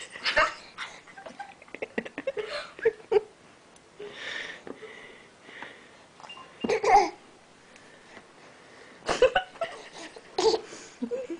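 A baby's excited giggles, breathy squeals and babble in short bursts with quiet gaps between, the loudest burst about seven seconds in.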